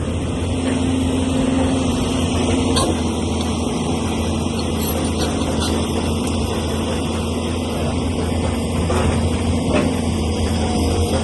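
Heavy machinery engine running steadily, with a few faint clicks or clanks.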